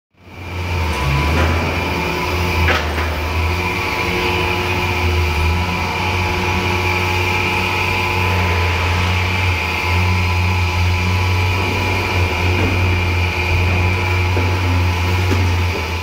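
Auto shredder residue recycling machinery running steadily: a loud low hum with a steady high-pitched whine over it, like the fans and mills of an air separation line.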